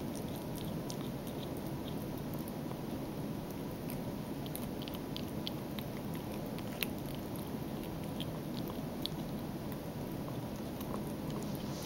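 A four-week-old kitten chewing raw steak: scattered short, irregular wet clicks and smacks, the sharpest about seven and nine seconds in. A steady low hum runs underneath.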